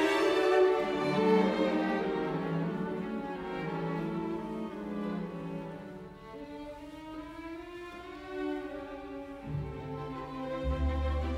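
Slow background music with long held notes; a deep bass note comes in near the end.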